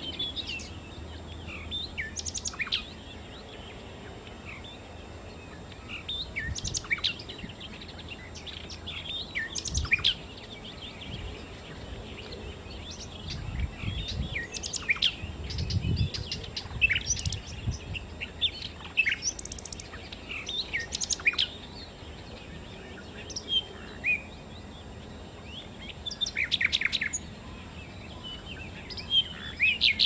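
Nightingale singing in short separate phrases of whistled notes and rapid repeated notes, with pauses of a second or two between phrases. A low rumble sits underneath about halfway through.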